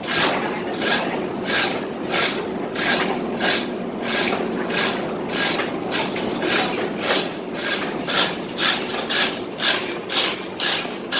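Steady, regular rasping strokes, a little under two a second, coming slightly faster in the second half, like a hand tool being drawn back and forth over a hard surface.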